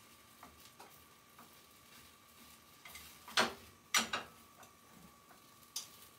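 Long cooking chopsticks tapping against a rectangular tamagoyaki pan while rolling the omelette: a few faint ticks, then a couple of sharp clacks about half a second apart just past the middle.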